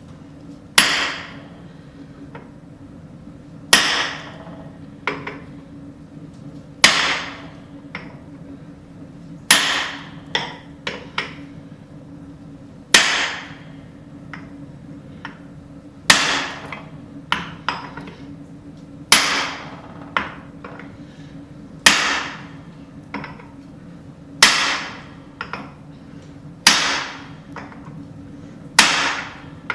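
Hand hammer striking a punch into a hot steel hammerhead to punch the eye from the second side: heavy metal-on-metal blows about every three seconds, each followed by one or two lighter taps.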